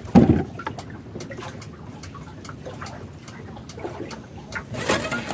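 A bump just after the start, then steady wind and water noise around a small wooden boat at sea, with scattered light knocks and rustles of handling.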